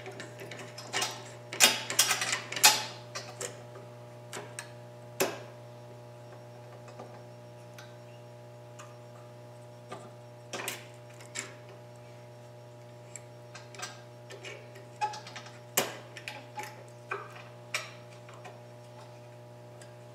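Small hand clamps being set and pieces of bandsaw blade handled on a steel table: scattered sharp clicks and taps, a quick cluster in the first few seconds and then sparser, over a steady low hum.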